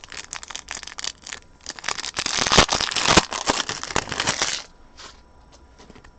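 Crinkling and tearing of a trading-card pack wrapper being ripped open, with the cards handled. The crackling is densest about two to three seconds in and stops after four and a half seconds.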